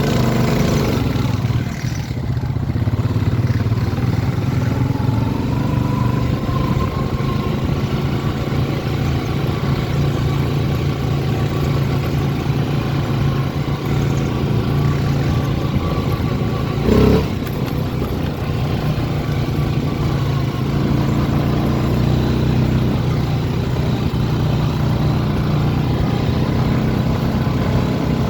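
ATV engine running steadily under way, with a whine that rises over the first few seconds. A single sharp thump comes about two-thirds of the way through.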